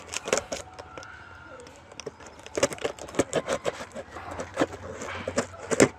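Packing tape being picked at and torn open along the seam of a cardboard parcel box: a run of crackling scratches and ticks, sparse at first and thick from about halfway in.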